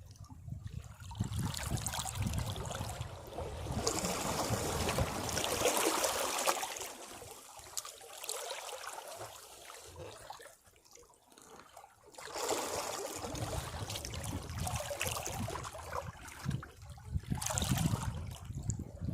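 Sea waves washing against rocks, each wave surging and draining away. A long surge gives way to a quieter lull in the middle, then the water rises again twice.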